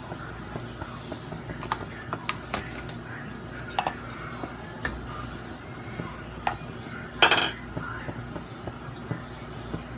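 Clinks and knocks of kitchen utensils against a metal wok, a few light taps and one louder, short clatter about seven seconds in, as a wooden spatula is taken up to stir the broth. A low steady hum runs underneath.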